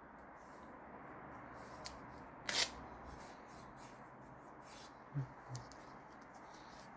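Quiet hand-work sounds: small rustles and clicks, one brief louder rasp about two and a half seconds in, and two soft knocks a little after five seconds.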